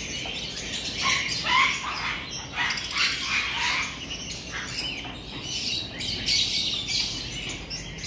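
A crowd of caged lovebirds and parakeets chirping and chattering over one another in a constant din of short, high calls.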